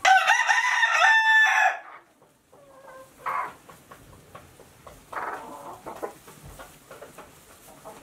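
A rooster crowing once, loud, for nearly two seconds at the start, followed by a few short, quieter clucks from the hens.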